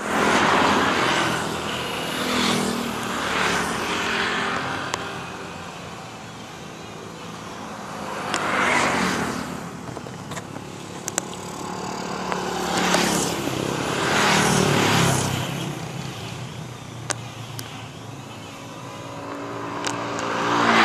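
Buses and other road traffic passing one after another. Each pass swells and fades, with a steady low engine tone under the rush, about six times in all.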